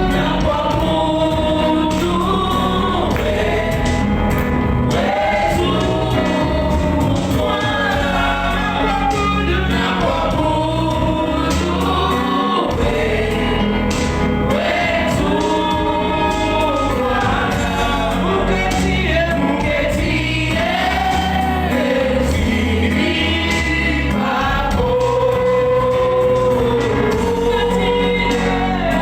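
Gospel worship song: a choir singing with a steady instrumental backing and beat.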